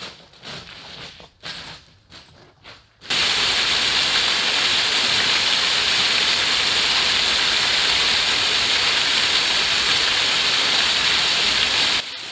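Footsteps crunching on beach cobbles, two to three a second. About three seconds in, the loud, steady hiss of a small waterfall splashing onto rocks starts suddenly, then cuts off just before the end.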